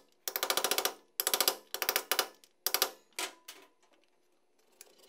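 Metal tear strip being peeled off a sealed can-style housing with pliers, a rapid run of clicks in about six bursts that get shorter and fainter, the last about three and a half seconds in.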